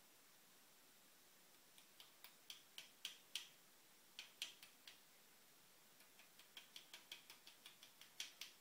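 Light hammer taps on a CNC router spindle's bearing housing, short sharp metallic ticks about four a second in three runs with a brief pause midway, as the bearing is driven during a bearing replacement.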